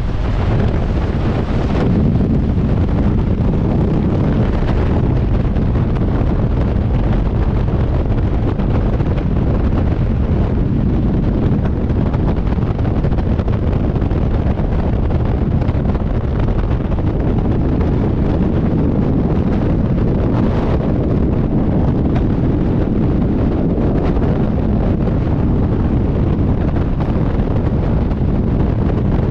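Loud, steady rush of freefall wind buffeting a skydiver's camera microphone.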